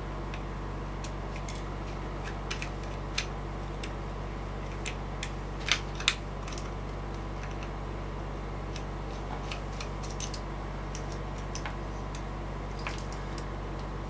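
Small screwdriver working the screws of a brass Corbin cabinet lock's back plate: scattered light metallic clicks and ticks, two sharper ones about six seconds in, over a steady low hum.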